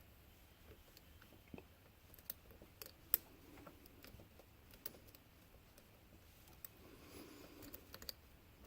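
Faint, scattered clicks and light scraping of a lock pick and tension wrench working the pins of a pin-tumbler lock, with one sharper click about three seconds in.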